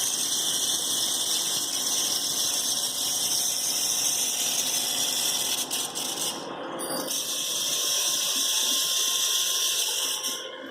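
Wire EDM machine cutting: a steady high hiss of the spark gap and dielectric water flushing, which drops out briefly about six and a half seconds in.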